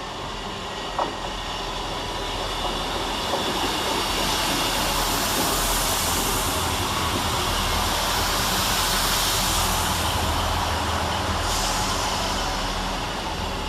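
A Northern Class 158 diesel multiple unit running into the station. Its engine drone and wheel-on-rail noise grow louder over the first few seconds, hold steady, then begin to fade near the end.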